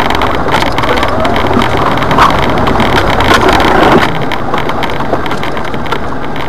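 Jeep Wrangler driving over rough, muddy ground, heard from inside the cab: a steady engine and road rumble with frequent knocks and rattles from the body, a little quieter after about four seconds.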